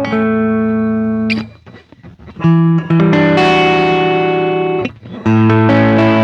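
Electric guitar playing held chords through a Ross compressor reissue and a chain of overdrive and boost pedals, the notes sustaining long and even. The playing breaks off about one and a half seconds in, then comes back with new chords, with another short break near five seconds.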